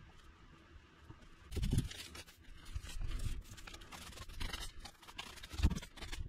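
Garden rake scraping over dry dirt and dead weeds in repeated strokes, starting about one and a half seconds in, with two dull thumps among them.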